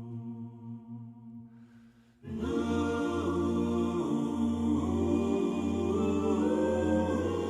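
Background music: one piece fades out over the first two seconds, then a new piece of layered vocal music starts abruptly about two seconds in and carries on steadily.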